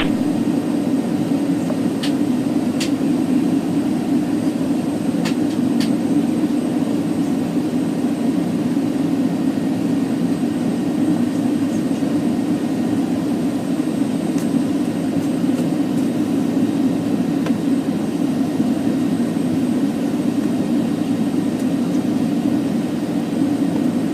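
Steady cabin noise inside a Boeing 737 on approach: the even rumble of the jet engines and airflow, heard from a seat near the front of the cabin.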